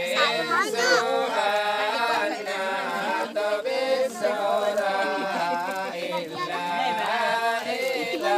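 A group of voices chanting together in a ceremonial chant, with long held notes that bend up and down in pitch and no pause.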